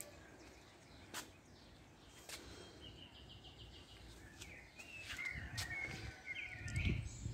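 Small birds chirping in short calls and trills, with a few sharp clicks. From about five seconds in a low rumbling noise grows and becomes the loudest sound.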